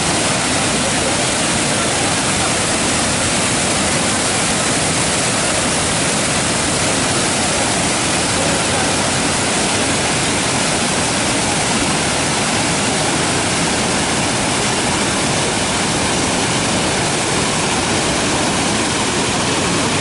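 Dudhsagar Falls, a tall multi-tiered waterfall, pouring over rock into a pool below: a loud, steady rush of falling water.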